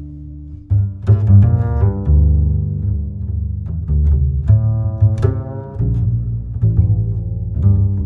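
Cinematic background music led by low bowed and plucked strings, with notes changing every second or so over a heavy bass.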